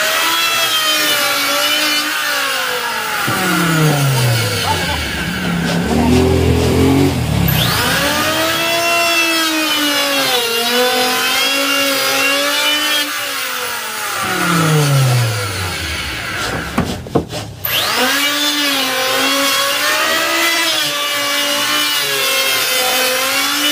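Electric hand planer running, its motor pitch repeatedly sagging and recovering as it cuts through wood. Twice, a few seconds in and again past the middle, the motor slows steeply almost to a stop before speeding back up, and there is a brief break about two-thirds through.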